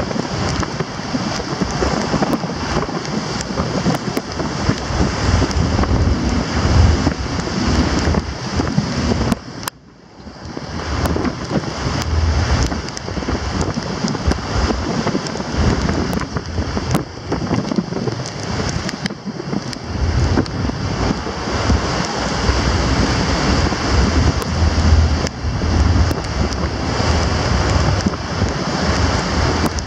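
Churning seawater rushing and breaking along a ferry's hull in storm swells, with wind buffeting the microphone in gusty low rumbles. Both ease off briefly about ten seconds in.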